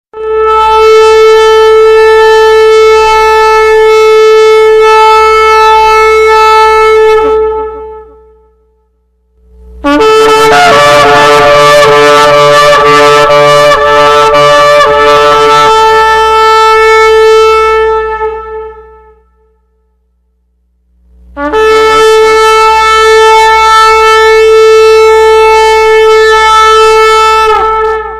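Shofar (ram's horn) sounding three long blasts on one steady pitch, each lasting seven to nine seconds with short pauses between. The middle blast wavers in rapid pulses through its first several seconds before settling into a steady tone.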